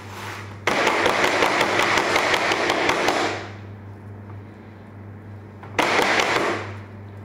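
A large metal baking tray, gripped by its edges, is rattled back and forth on a marble counter in a fast run of knocks to settle and level the semolina harissa batter. There is one bout of about two and a half seconds, then a shorter one near the end.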